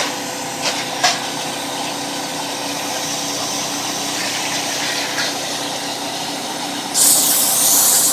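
Steady hum of a CNC plasma cutting table's running equipment, with a few light knocks as the cut sheet-metal piece is handled. About seven seconds in, a loud steady hiss of air starts suddenly.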